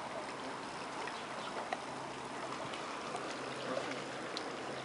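Steady hiss of lake water lapping against a concrete pier, with a few faint clicks.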